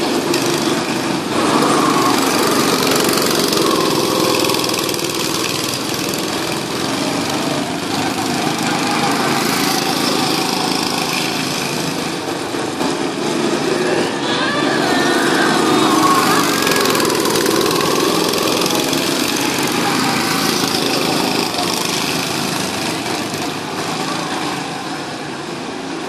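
Small go-kart engines running as karts circle the track, the sound swelling and easing as they come nearer and go away.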